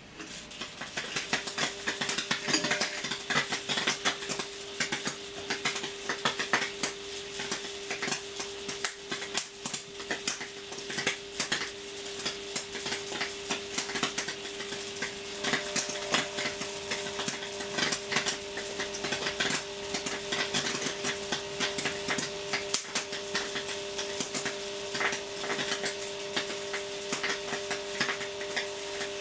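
High-voltage arcs from a microwave oven transformer crackling and sizzling through a plasma TV panel. A steady electrical hum starts about a second in, and a second, higher hum tone joins about halfway through.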